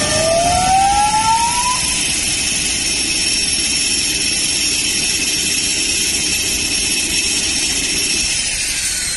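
Cessna 208 Grand Caravan's PT6A turboprop running at taxi power: a steady high turbine whine over the propeller drone, the whine falling in pitch near the end. A single tone rises in pitch during the first two seconds.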